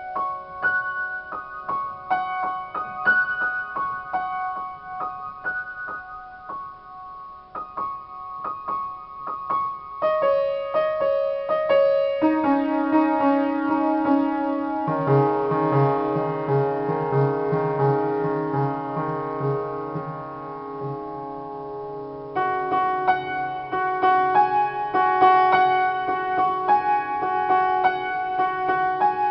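Upright piano played in a slow free improvisation: sparse single notes and chords up high, then from about ten seconds in lower chords left ringing into one another over a quick repeated figure in the bass. Brighter treble chords come back about two-thirds of the way through.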